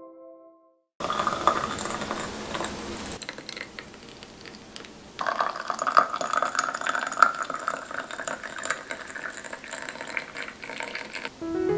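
Thick blended apple, beet and carrot juice poured in a steady stream into a glass, splashing and bubbling with small crackles into the juice already in it; the pouring grows louder about five seconds in.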